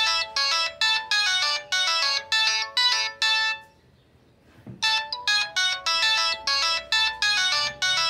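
Samsung SCH-A815 mobile phone playing its default ringtone through its small speaker: quick runs of short, bright notes. One pass ends about three and a half seconds in, and after about a second's pause the tune starts over.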